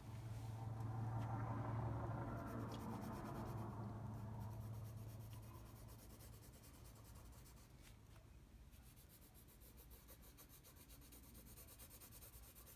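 Graphite pencil shading on paper: quick, light scratchy strokes that grow plainer in the second half. Over the first few seconds a low hum swells and fades away.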